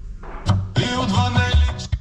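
Music from a radio station playing through the car's speakers from a newly installed 10-inch Android head unit. It comes in about half a second in and drops away near the end.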